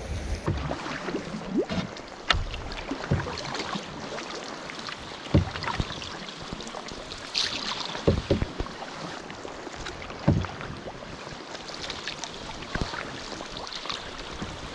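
Canoe on open water: water splashing and lapping against the hull as it is paddled. A few short sharp knocks stand out, about 2, 5, 8 and 10 seconds in.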